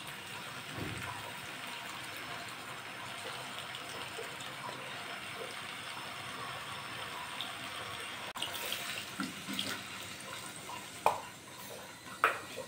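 Tamarind juice poured in a steady stream into a steel pressure cooker of curry, running for about eight seconds. Then a sharp click and a few light knocks near the end.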